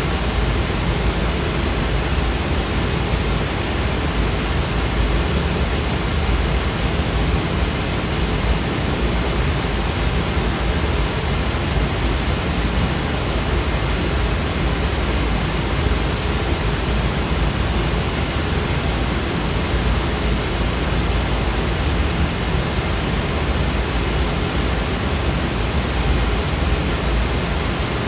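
Steady white-noise sound effect: a constant, even hiss across the whole range, somewhat heavier in the low end, unchanging throughout.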